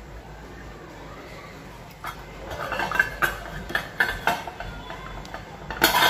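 A run of light metallic clinks and knocks, starting about two seconds in and loudest just before the end, as a soldering iron is pulled out of its coiled metal wire stand and handled.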